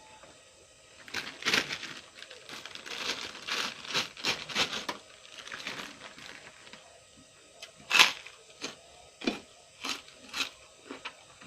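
Close-up crunching and chewing of raw cucumber: a run of crackly wet bites and chews. A sharp, loud crunch of a fresh bite comes about eight seconds in, followed by a few spaced chewing crunches.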